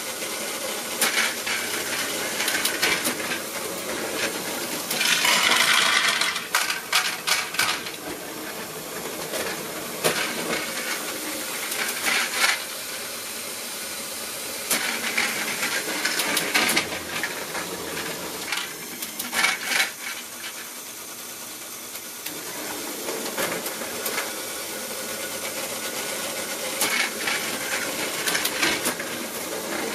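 Lego Technic passing mechanism and plastic Lego wagons running on Lego track: a steady whirr of plastic gears and wheels with frequent clicks and clatters of plastic parts. A louder stretch of rattling comes about five seconds in.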